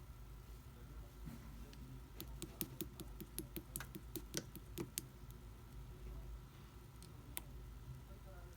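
Jelly-textured slime being handled: a run of sharp little clicks and pops, several a second, from about two to five seconds in, then one more near the end.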